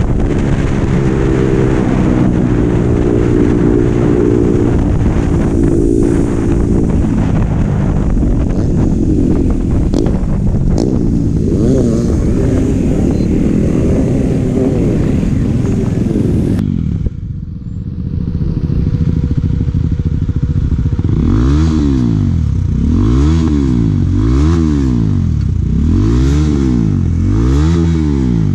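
Onboard sound of a KTM Duke motorcycle being ridden: its single-cylinder engine runs with wind noise on the microphone, and its pitch rises and falls as the bike slows. After an abrupt cut a little past halfway, a motorcycle engine is revved again and again, about one blip every second and a half.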